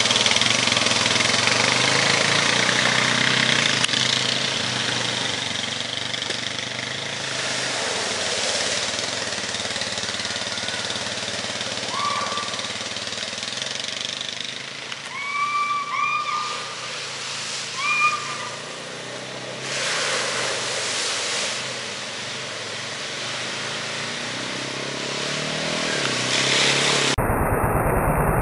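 Four-wheel-drive Honda ATVs running through deep mud puddles, engines droning under the hiss and slosh of water and mud being churned and sprayed. A few short high calls come in the middle.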